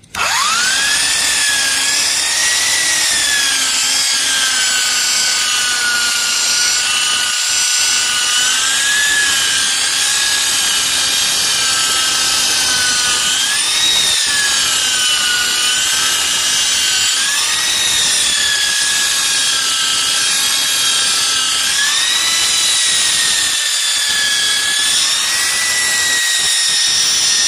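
Handheld electric rotary polisher spinning up and then running steadily with its pad on scratched windshield glass, grinding out deep scratches. Its whine dips and recovers in pitch every few seconds as it is worked over the glass.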